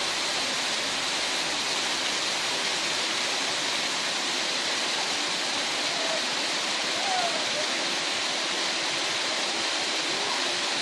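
Waterfall cascade pouring into a plunge pool, a steady rushing hiss of falling water.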